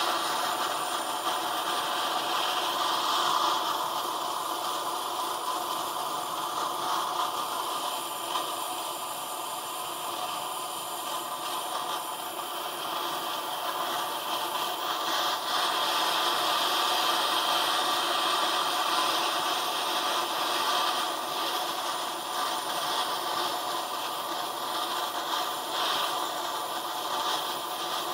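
MAPP gas torch burning steadily into a small firebrick forge, a constant rushing hiss, while a blade held in tongs heats for hardening. A few faint clicks come near the end.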